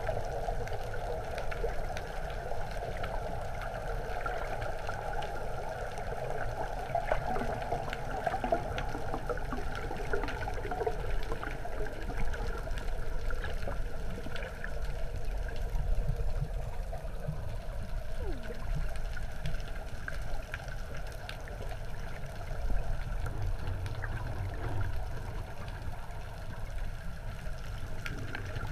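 Muffled underwater water noise picked up by a submerged camera: steady sloshing and bubbling with a low rumble and scattered faint clicks.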